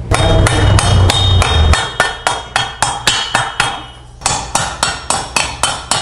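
Hammer blows on a BMX frame, a quick steady series of metal-on-metal strikes at about three to four a second, with a short pause about four seconds in. A metallic ring hangs over the first few blows.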